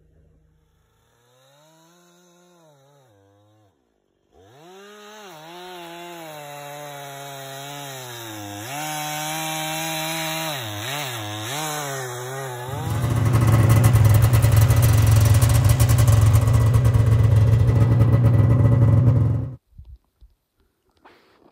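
Gas chainsaw cutting through a log, its engine speed rising and falling as it works, then running loud and steady at full throttle for several seconds before cutting off suddenly near the end.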